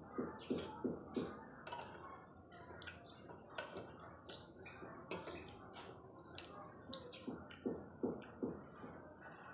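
Close-up eating sounds of a person with a spoonful of chicken rice porridge (arroz caldo): rhythmic chewing and wet lip smacks, about three a second in short runs, mixed with sharp clicks of a metal spoon against a ceramic bowl.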